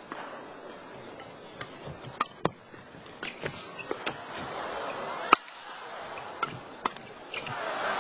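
Badminton men's doubles rally: a run of sharp racket strikes on the shuttlecock at irregular intervals, the loudest about five seconds in, over arena crowd noise that swells near the end.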